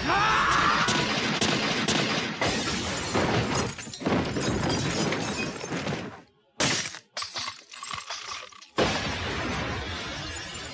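Anime battle sound effects: a brief shout at the start, then a dense rushing roar that cuts to near silence about six seconds in, followed by a run of sharp cracks and a crash of breaking.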